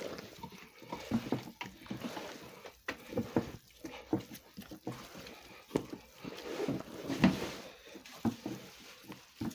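Hands beating a large batch of soft sweet-bread dough in a plastic tub: irregular wet slaps and squelches, several a second, as the dough is worked until it stops sticking.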